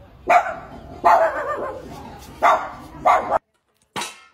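A dog barking in four short bursts, the second one longer. After a sudden break there is one brief, sharp sound near the end.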